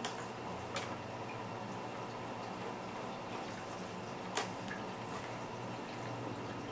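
Small screwdriver clicking against tiny screws in a laptop's plastic case: three short sharp clicks, the loudest about four seconds in, over a faint steady hum.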